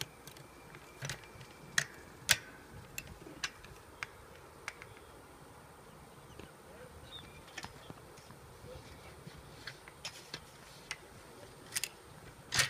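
Scattered sharp clicks and light metallic knocks from a pole-mounted metal bracket holding a glass mosaic tile panel as it is moved against a block wall, loudest about two seconds in and again just before the end.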